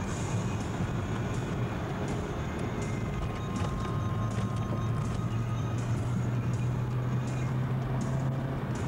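VW Jetta driving, heard from inside the cabin: a steady low engine hum under road and wind noise, the engine's pitch rising a little in the second half.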